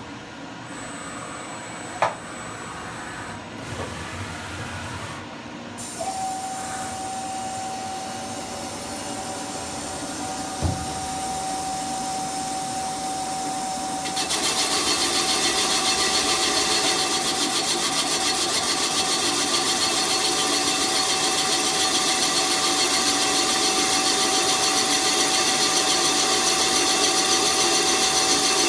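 A metal-cutting machine boring the cylinders of a cast-iron Ford Kent 109e engine block. A sharp click comes about two seconds in. A steady motor whine starts about six seconds in, and about fourteen seconds in the sound turns much louder and harsher and holds steady as the cut runs.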